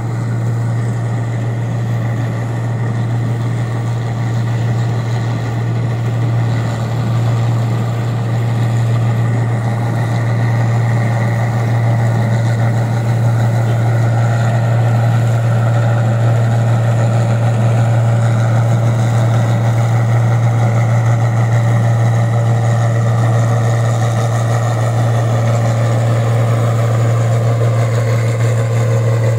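New Holland 8060 combine harvester running as it cuts rice: a steady, deep drone of its diesel engine and threshing machinery. It grows louder over the first ten seconds or so as the machine comes closer, then holds steady.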